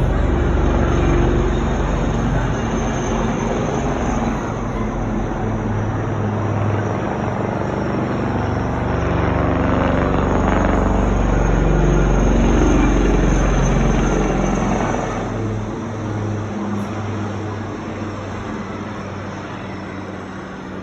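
Boeing CH-47 Chinook tandem-rotor helicopter flying past. Its rotor and turbine noise builds to a peak about twelve seconds in, then fades steadily as it moves away.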